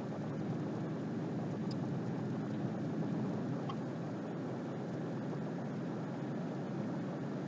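Car driving along, heard from inside the cabin: a steady mix of road and engine noise.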